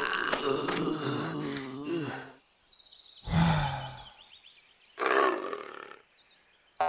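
Wild-animal sound effects for a cartoon fight: several growls and snarls overlap for the first two seconds. Single shorter roaring calls follow, one about three seconds in and another near five seconds.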